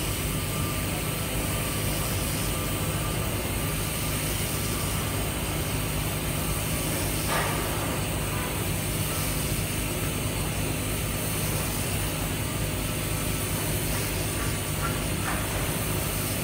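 TIG welding on stainless steel pipe: the arc burns steadily with a continuous hiss over a low, even machine hum, with a faint tick about seven seconds in.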